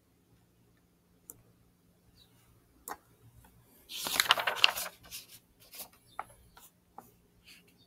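Computer mouse clicks at a desk, a couple of sharp clicks followed by a loud rustling noise lasting about a second, then more light clicks and ticks.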